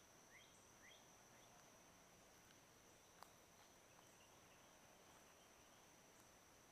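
Near silence outdoors: a faint steady high-pitched tone, with a few short, faint rising bird chirps in the first second and a half and a single sharp click about three seconds in.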